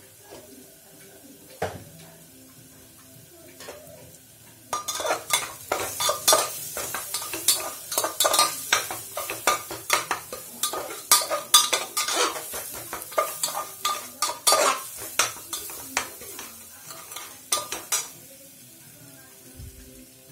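Flat metal spatula stirring and scraping frying onions and spices in a metal pressure cooker pot, with rapid clinks and scrapes against the pot over a frying sizzle. The stirring starts about five seconds in and stops near the end, after a single knock early on.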